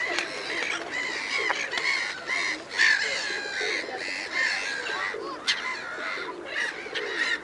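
Gulls calling over one another: a steady run of short cries that rise and fall in pitch.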